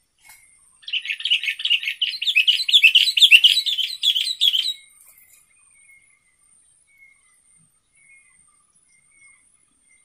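Sooty-headed bulbul (kutilang) singing one loud, rapid chattering burst that starts about a second in and lasts about four seconds. Faint high insect-like chirps repeat behind it.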